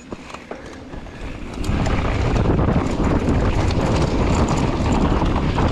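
Mountain bike riding fast over a loose, rocky trail: tyre noise and the rattle of the bike over stones, with wind buffeting the microphone. It is fairly quiet with a few ticks at first, then gets much louder about a second and a half in and stays loud.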